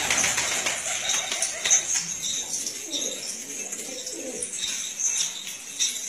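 Domestic pigeons cooing in soft low murmurs, over a steady high-pitched background hiss.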